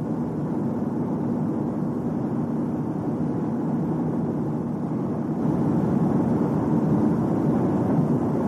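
Steady rumbling vehicle running noise, a broad drone with no clear pitch, growing louder about five and a half seconds in.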